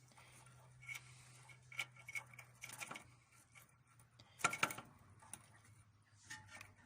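Light metallic clicks and rattles of a Howard 350 clutch cable and its fittings being handled and worked into place, the loudest clatter about four and a half seconds in. A faint steady low hum runs underneath.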